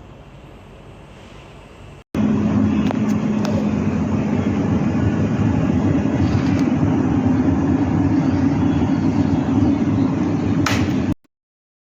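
Hulmers 2-litre electric kettle heating water toward the boil: a loud, steady rushing noise with a low hum under it. It starts abruptly about two seconds in and cuts off suddenly near the end.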